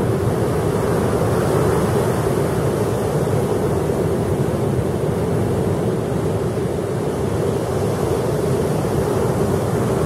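Sea surf as a steady, even rushing noise, with no separate wave breaks standing out.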